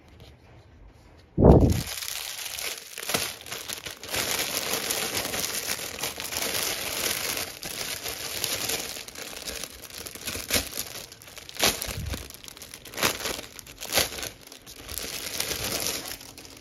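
Clear plastic packaging bag crinkling and crackling as hands handle it and slide a book out of it, with many sharp crackles. A single dull thump about a second and a half in is the loudest sound.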